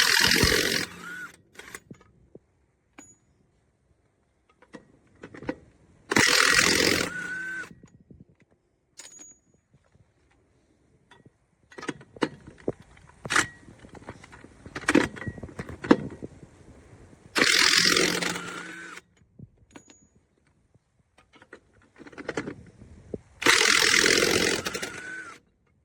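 Cordless brushless 1/2-inch impact wrench hammering in reverse in four bursts of one to two seconds each, undoing nuts. Short metallic clicks and clinks come between the bursts.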